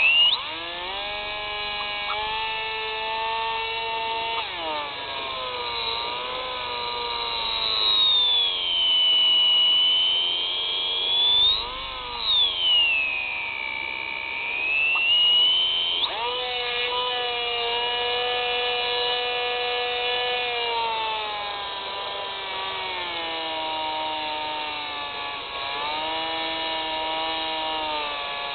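Electric motor and propeller of an FPV model aircraft whining in flight, the pitch rising and falling with the throttle. In the middle a higher whine swoops down and back up twice, and near the end the motor note drops lower.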